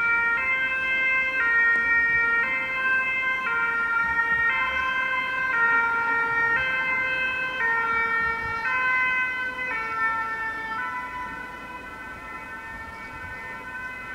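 Belgian level crossing's electronic warning bells sounding a two-tone ding-dong, switching pitch about once a second while the barriers are down. About eleven seconds in the alternation stops and the ringing goes on steadier and quieter.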